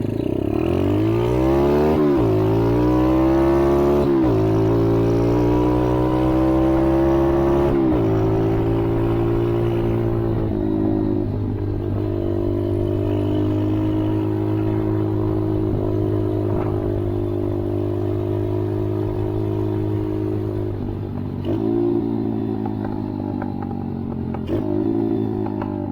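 ATV engine accelerating hard, its pitch climbing and dropping back with each upshift in the first several seconds. It then holds a steady high-speed drone, easing off and picking up again twice near the end.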